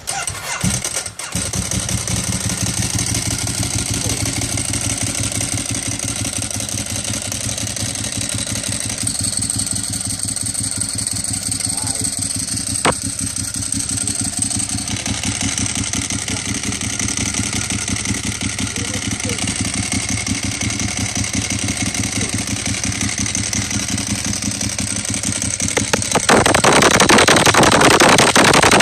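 Ducati 1098S L-twin engine firing up and settling into a steady, lumpy idle. Near the end it gets clearly louder as the throttle is opened and held.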